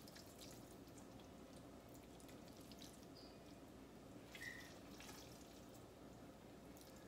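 Near silence: low steady room hum with a few faint clicks and scrapes, the loudest about four and a half seconds in, as kitchen tongs serve spaghetti from a skillet onto a plate.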